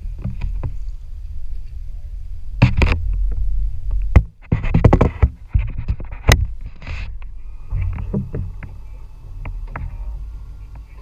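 Steady low rumble of wind and motion on a small offshore fishing boat, broken by irregular sharp knocks and rattles, the loudest a few seconds in.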